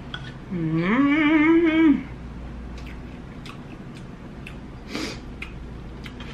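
A woman hums a closed-mouth "mmm" that rises and is then held for about a second with a wavering vibrato. After it come faint mouth clicks from chewing food, with one brief louder mouth noise about five seconds in.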